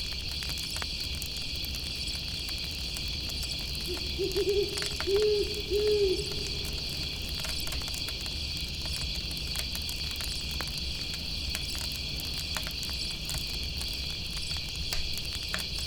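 An owl gives a short run of low hoots between about four and six seconds in, over a steady high chirring chorus of insects. Scattered crackles of a campfire and a low rumble run underneath.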